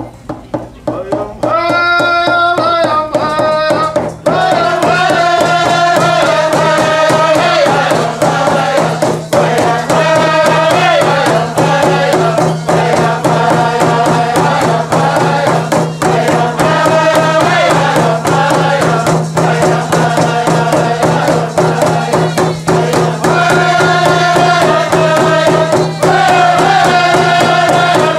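Native American song with hand drums: a group of singers beating frame drums in a steady rhythm. A single voice takes up the first phrase about a second and a half in, and the others join with full group singing over the drumbeat from about four seconds on.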